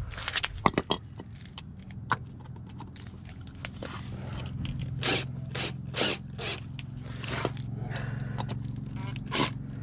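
Cordless drill driving a bit into a stuck special screw on a throttle body. A few sharp clicks come first, then the motor runs steadily with repeated scraping as the bit slips in the screw head and fails to turn it out.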